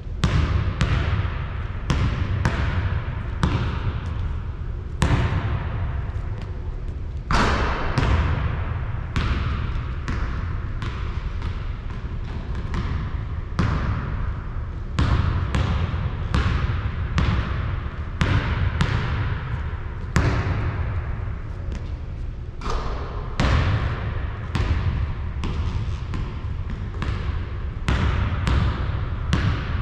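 A basketball bouncing over and over, about one to two bounces a second, each bounce echoing briefly.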